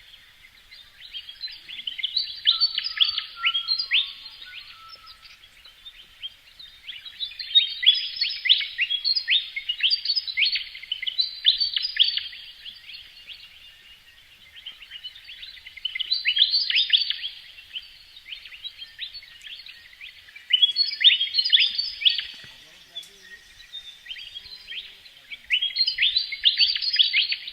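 Bird song: repeated bursts of rapid, high, downward-sliding chirps, each burst a few seconds long, with short pauses between.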